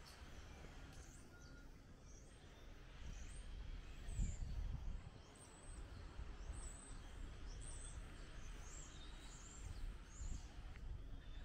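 Wind buffeting the microphone in gusts, strongest about four seconds in, with small birds chirping repeatedly from about three seconds in until near the end.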